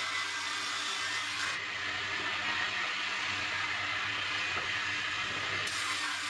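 Electric bandsaw running steadily while resawing a wooden block into thin boards. The sharper high hiss drops away after about a second and a half and comes back near the end, when the block is pushed into the blade again.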